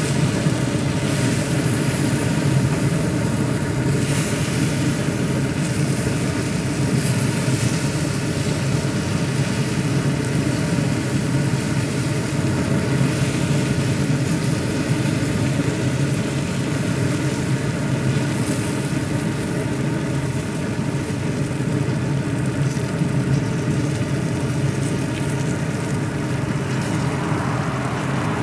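Z Grills pellet grill's fan motor running with a steady hum.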